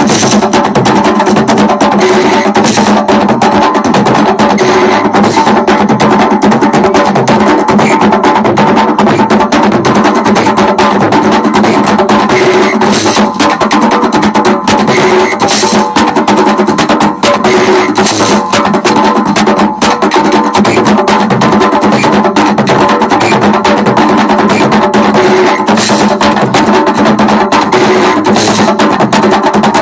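Loud live drumming on goblet-shaped hand drums: a fast, steady, driving rhythm of dense strokes, with sharp wooden knocks among them.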